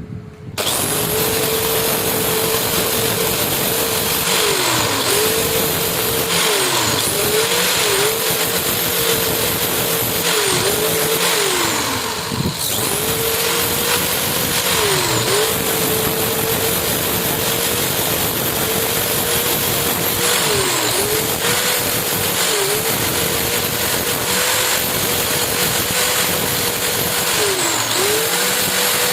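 Electric grinder running against the steel of a rusted knife blade, with the gritty rasp of abrasive on metal. Its motor whine dips in pitch each time the tool is pressed in, then recovers. It starts about half a second in.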